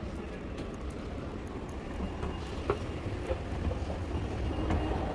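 Steady low vehicle rumble under a noisy hiss, with scattered light clicks and knocks and one sharper click a little past halfway.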